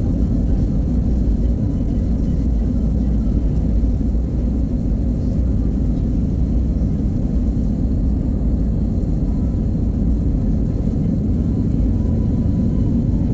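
Jet airliner cabin noise on the takeoff roll: a steady low roar from the engines and rumble from the wheels on the runway.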